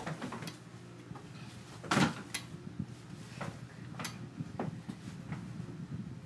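Electric fan running on its lowest setting with a phone taped to it: a steady low motor hum with irregular knocks and rattles from the spinning phone, the loudest about two seconds in.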